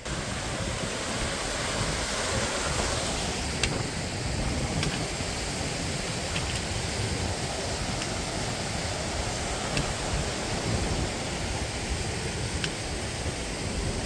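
Mountain stream cascading over boulders: a steady wash of rushing water, with a few faint sharp clicks scattered through.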